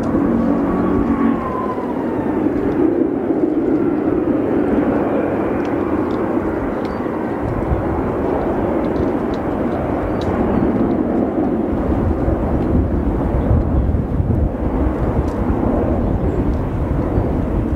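Airbus A380 four-engine jet airliner flying low overhead: a dense, steady jet rumble, with a faint whine falling in pitch in the first second or two and the low rumble growing heavier past the middle.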